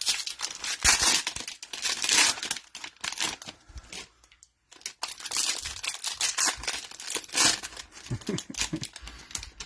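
Cellophane wrapper of a trading-card cello pack crinkling as it is torn open and handled, in two bouts with a short pause about halfway.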